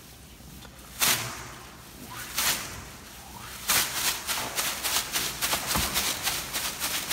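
A shaman's bundle of dried leaves (the wairá) swished and slapped against a seated person's head and shoulders, rustling on each stroke. Two single strokes come first, then a quick, even run of strokes about three a second.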